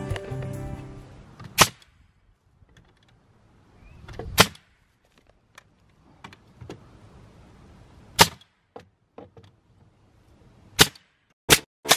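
Pneumatic nail gun firing nails into wooden slats: six sharp cracks, spaced a few seconds apart at first, with the last three close together. Faint handling clicks fall between them, and background music fades out in the first second or so.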